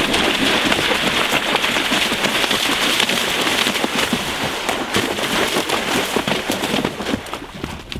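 A horse's hooves splashing through shallow water at a canter, a continuous crackling rush of splashes that eases near the end as the horse leaves the water.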